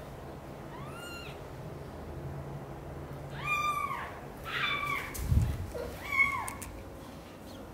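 A young British shorthair kitten meowing loudly: a faint cry about a second in, then three loud cries that rise and fall in pitch. A dull thump between the last two cries as the mother cat jumps out of her wicker basket.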